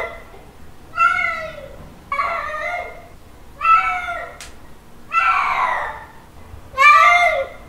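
Cat mating calls: a series of about five drawn-out meows, each lasting under a second to about a second, several bending down in pitch at the end.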